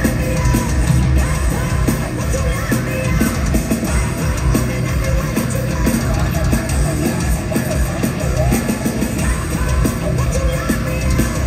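Heavy metal band playing live at high volume, guitars, bass and drums with a yelled vocal, recorded from the crowd.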